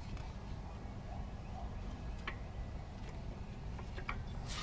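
A few faint, short clicks and taps from brake parts being handled, over a low steady hum.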